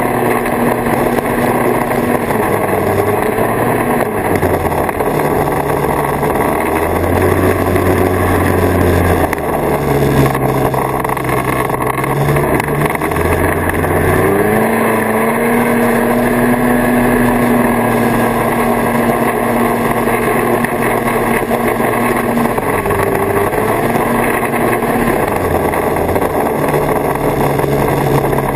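1979 Kawasaki Invader 440 snowmobile's two-stroke engine running under way. Its pitch shifts with the throttle: lower about seven to ten seconds in, then climbing about fourteen seconds in and holding higher for several seconds.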